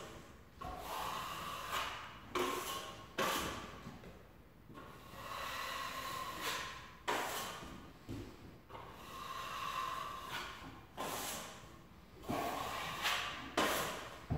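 Wide drywall skimming blade spreading a first coat of joint compound over a butt joint: a series of scraping strokes, each a second or two long, with short sharp scrapes between them.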